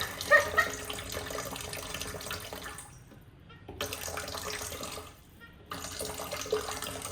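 Water running from a tap into a sink, a steady rush that drops out briefly twice. The tap's crying-baby squeal is not clearly present.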